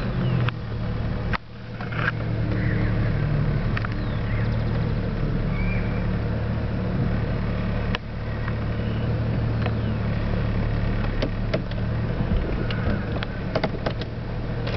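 Car engine running steadily, heard from inside the cabin as a low, even hum, with two brief dips and a few scattered clicks.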